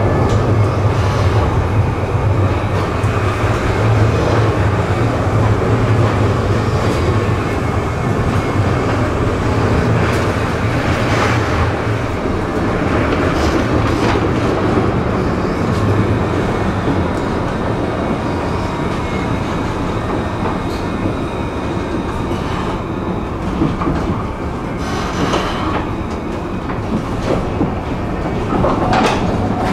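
Tram running along the track: steady rolling noise of wheels on rails with scattered clicks over rail joints. A low hum underneath fades about twelve seconds in.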